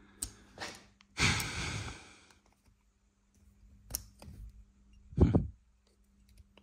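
A long exasperated sigh about a second in, with a few sharp small clicks from handling the plastic brake-lever parts, and a short low thump, the loudest sound, near the end.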